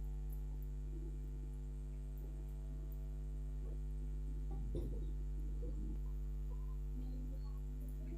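A steady low electrical hum, with a faint knock about five seconds in.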